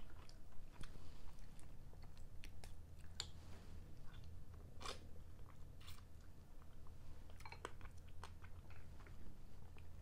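Close-miked eating of mussels: scattered clicks and scrapes of the shells as the mussels are pulled out by hand, with chewing of the mussel meat.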